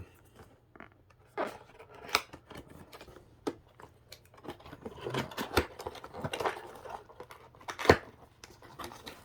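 Cardboard and plastic packaging being handled and opened: irregular scrapes, rustles and clicks, with a sharper knock near the end.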